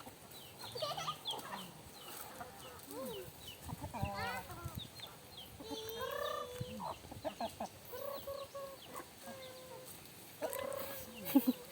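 Free-range chickens clucking, with chicks peeping in short high chirps scattered among the hens' lower clucks.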